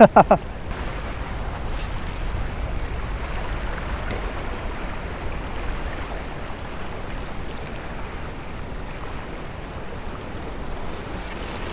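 Steady wash of small waves against the jetty's rocks, with a low wind rumble on the microphone.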